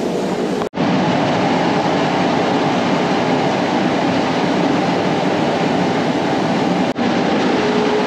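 A trailer tipping a load of spring oats in a grain shed: steady machine running together with the rush of grain. It breaks off for an instant twice, about a second in and near the end.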